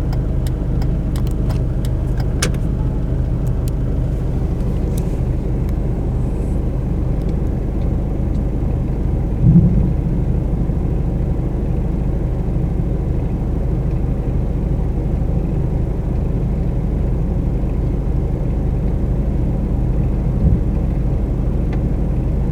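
A car idling at a standstill, a steady low hum heard from inside the cabin, with one brief thump about ten seconds in.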